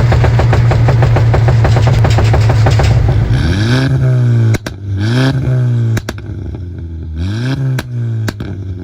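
Stage 2-tuned Audi B8 A4 engine and exhaust, held at steady revs with a rapid crackle for about three seconds, then revved three times, with sharp pops as each rev falls away. These are the overrun crackles and pops that the tune programs into the exhaust.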